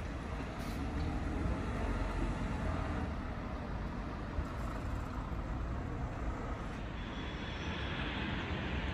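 Articulated city bus driving off, a steady low engine and road rumble.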